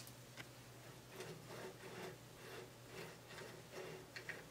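Faint rubbing of an early Ford banjo axle's freshly installed pinion being turned and rocked by hand in its bearings, a soft swish about two or three times a second over a low steady hum, with a couple of tiny clicks near the end. It is a check for play: the pinion turns freely with no play in or out.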